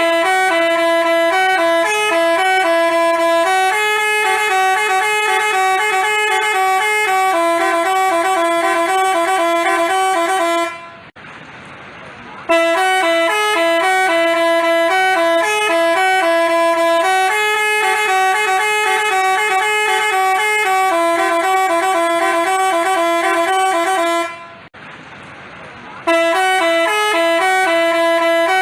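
Telolet basuri multi-tone bus horn playing a quick melody of stepped notes, a phrase of about ten seconds that repeats, with short breaks about eleven and twenty-five seconds in.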